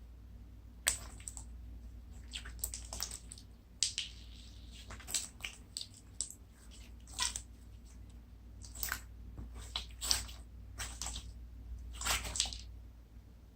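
Wet slime squeezed and kneaded by hand for foley, making a string of irregular short squelches, roughly one a second.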